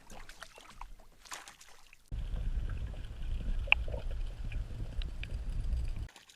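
Faint splashing of the hooked fish at the water's surface, then wind buffeting the microphone as a heavy low rumble that starts suddenly about two seconds in and cuts off near the end, with a single sharp click in the middle.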